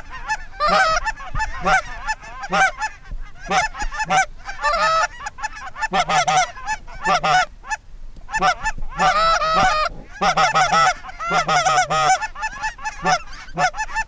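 Geese honking and clucking: many short, rapid calls in clusters, with brief gaps between the flurries.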